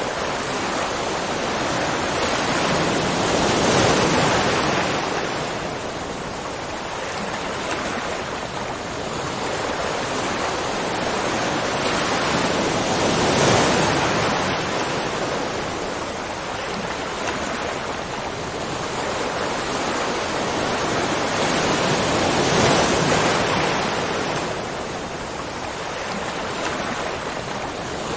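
Continuous rush of water, swelling and easing about every nine seconds.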